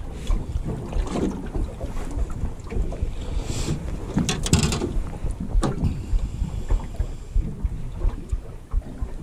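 Wind buffeting the microphone aboard a small aluminium boat, a steady low rumble, with a short cluster of knocks and rattles about four and a half seconds in as a small whiting is swung aboard on the line.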